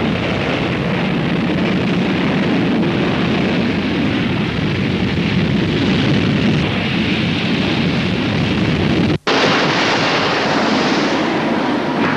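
Loud, continuous roar of an Avro Vulcan bomber's four jet engines as it climbs away. About nine seconds in the sound drops out for an instant and a hissier roar follows.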